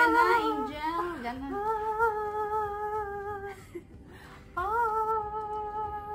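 A woman's voice humming long held notes: wavering in pitch at first, then two steady notes of about two seconds each with a short break between.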